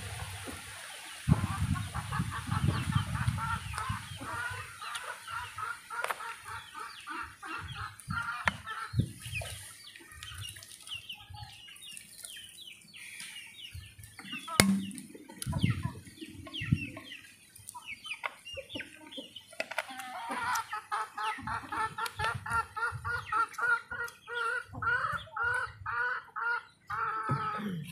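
Chickens clucking in two long runs of quick, short repeated calls, with scattered soft knocks and rustles in between.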